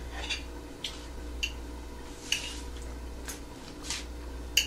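Metal fork clinking against a ceramic plate of beet salad, about seven sharp clinks spread out, the loudest near the end, over a low steady hum.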